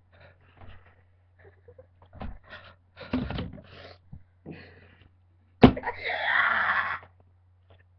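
Breathy, wheezing vocal noises from a person trying to force a burp without soda: a few short puffs and gulps, then a sharp click about two-thirds of the way in followed by a loud hissing exhale lasting about a second.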